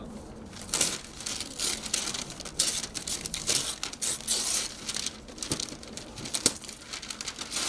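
Brown wrapping paper on a cardboard box crinkling and rustling in irregular bursts as the box is unwrapped by hand.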